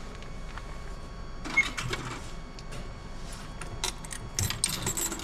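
A station ticket vending machine's touch screen giving a short beep as a fare is pressed, followed by scattered small clicks and rattles of handling at the machine, busier near the end.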